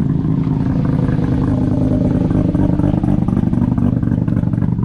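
A car engine running steadily, its note rising slightly and then holding.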